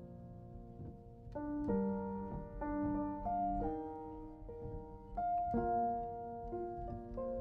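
Background piano music: single notes and chords played at an unhurried pace, growing louder about a second in.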